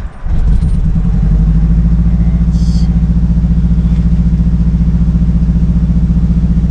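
Mazdaspeed 3's turbocharged 2.3-litre four-cylinder running low and steady with an even pulsing beat after a brief dip at the start. It is running rough after a VVT timing repair, with a fault code for a part stuck closed, and the owner expects it may stall if the throttle is let go.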